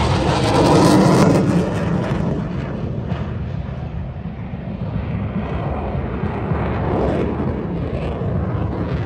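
Fighter jet passing overhead: loud jet engine noise, strongest in the first second or so, then fading to a steady low rumble.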